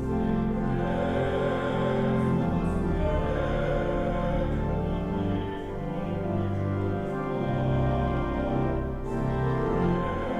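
Church organ music: slow, held chords that change every second or two.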